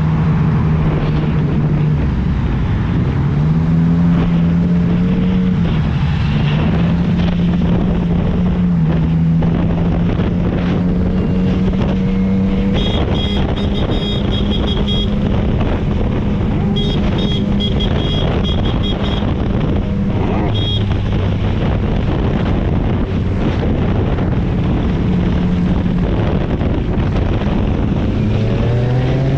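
Motorcycle engine running under way, with wind on the microphone; the engine note holds steady and steps between levels, then rises near the end as it revs up. Two spells of rapid high-pitched beeping come through around the middle.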